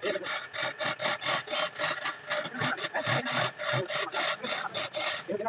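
Wood lathe turning a spindle while a hand-held turning tool scrapes and cuts into the spinning wood, in rhythmic strokes about five a second over the machine's steady tone.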